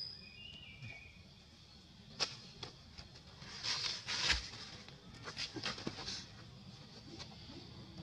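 Dry fallen leaves rustling and crackling as macaques scramble and scuffle over the forest floor. A few sharp crackles come first, then a louder burst of rustling about halfway through.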